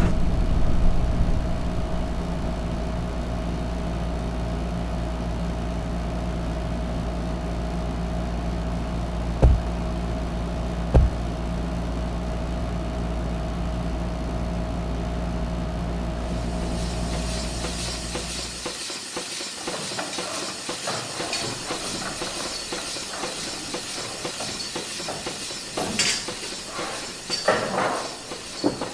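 Colliery machinery sound effects: a steady, low mechanical rumble with a hum, broken by two heavy knocks about a second and a half apart. Near the two-thirds mark the rumble fades into a steady hiss, with a few sharp clanks near the end.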